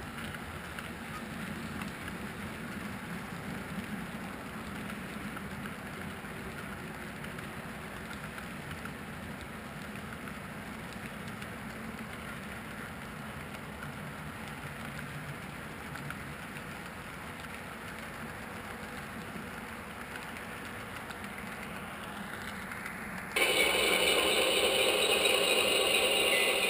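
HO scale model freight train rolling past on its track: a steady low clatter of the cars' wheels on the rails. About 23 seconds in it turns sharply louder, a close rattling running noise from a model diesel locomotive pulling past close by.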